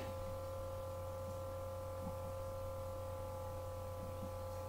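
Steady electrical hum: a low drone with several faint, unchanging higher tones above it, as from the recording equipment.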